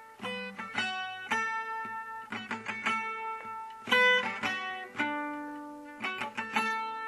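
Background music: a guitar picking out a quick run of plucked notes.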